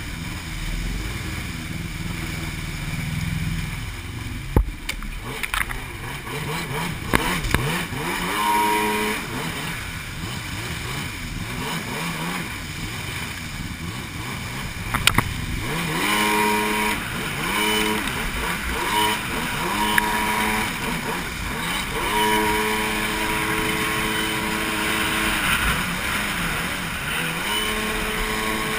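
Stand-up jet ski engine running hard, its pitch rising and falling as the throttle is worked, with water spray rushing under the hull. A few sharp knocks come through in the first half.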